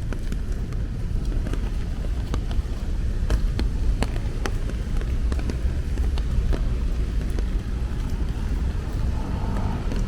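Rain during a street walk: irregular sharp taps of raindrops over a steady low rumble.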